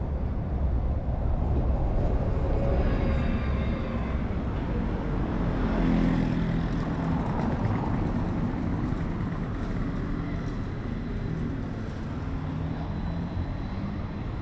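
Street traffic on a cobblestone street: a city bus and cars drive by with a steady engine drone and tyre rumble. It swells loudest about six seconds in, then eases.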